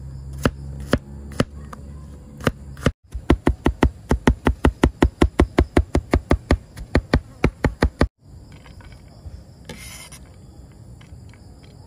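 Cleaver chopping garlic on a cutting board: a few spaced chops, then rapid even chopping at about six strikes a second. Near the end, lighter taps and a brief scrape as the blade gathers the minced garlic.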